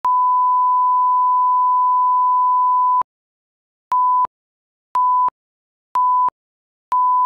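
Broadcast reference tone, held steady for about three seconds, then four short beeps of the same pitch a second apart. Each beep marks a number of a countdown leader.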